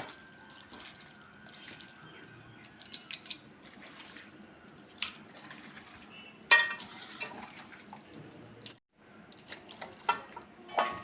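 Hands rubbing and mixing a spice paste into raw pork pieces in a bowl: wet squelching and dripping sounds with scattered clicks, and one ringing clink of the vessel about six and a half seconds in.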